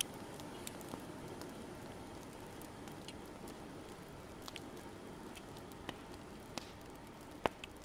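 Crackling fire: a steady low hiss with scattered sharp pops, the loudest near the end.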